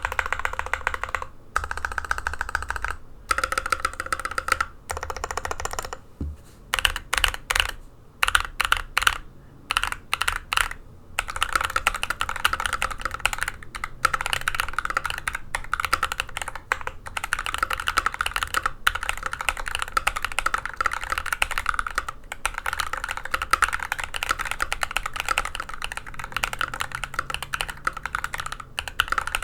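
Mechanical keyboard typing on stock, unlubricated Prevail Nebula switches, which have a nylon housing and a long-pole stem, in a GMMK Pro with an aluminium plate and EPBT keycaps. Short runs of keystrokes with brief pauses give way, about eleven seconds in, to steady fast typing.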